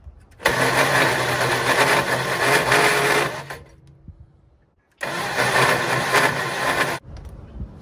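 1964 Farmall Cub's four-cylinder engine cranked over by its electric starter in two bursts, about three seconds and then two seconds long, each stopping abruptly without the engine catching. It turns over slowly, from a worn-out starter that the owner calls junk.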